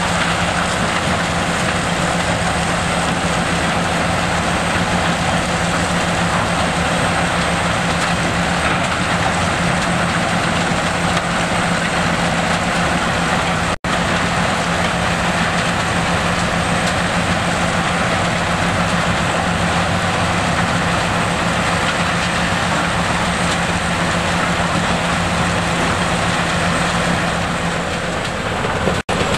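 GIPO R131C tracked mobile crusher running under load, crushing rubble: a steady, loud mix of diesel engine hum and crushing noise. The sound drops out for an instant about halfway and again near the end.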